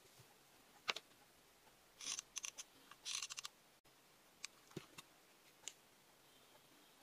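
Faint handling noises while a hot glue gun is used on crocheted yarn pieces: a sharp click about a second in, two short rustling scrapes, then a few light clicks.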